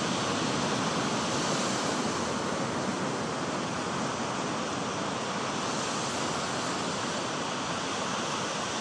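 Ocean surf breaking and washing up a sandy beach: a steady rushing hiss that does not let up.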